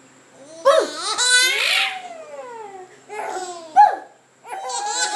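Babies laughing in several bursts of giggles and high squeals, including one long squeal that falls in pitch, with a short, loud, sharp burst about four seconds in.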